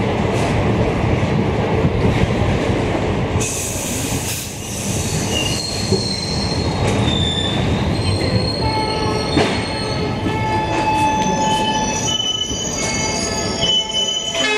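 Passenger train coaches rolling along a platform, then brake squeal: from about five seconds in, many steady high-pitched squealing tones overlap as the train brakes to a stop, because someone had pulled the emergency chain.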